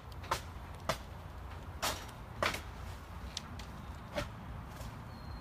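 A series of sharp, irregular knocks, about seven in five seconds, over a low steady rumble.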